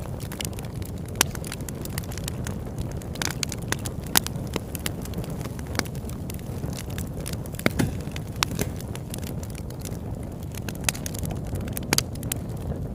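Campfire burning, its wood crackling with irregular sharp snaps over a steady low rush.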